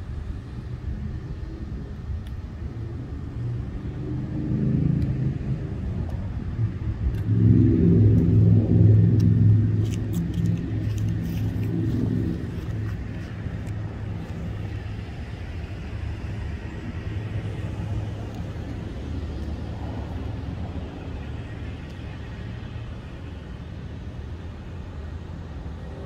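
A motor vehicle passing: its engine swells, is loudest for a few seconds, and then fades back into a steady low rumble.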